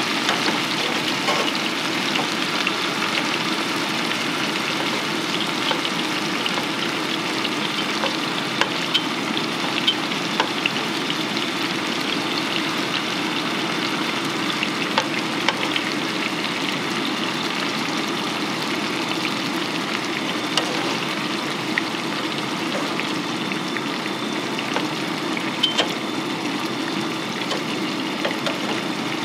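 Chicken pieces frying in oil in a non-stick pan, a steady sizzle with scattered small pops and crackles.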